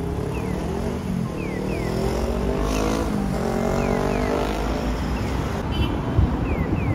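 Audible pedestrian-crossing signal giving its bird-call sound: pairs of short falling chirps repeating about every one and a half seconds, the cue that the crossing is open to walk. Under it runs steady road traffic, with a vehicle's engine rising in pitch near the middle as it pulls away.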